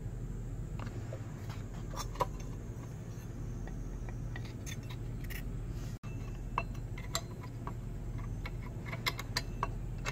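Scattered light metallic clinks and taps as small bolts, nuts and a steel axe head are handled on a wooden workbench, most of them after a short break about halfway through, over a steady low hum.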